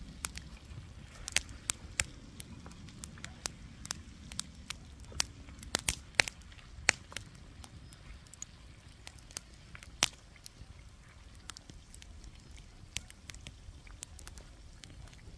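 Pans frying and simmering over a wood fire: irregular sharp pops and crackles over a low rumble, with a few louder pops about six and ten seconds in.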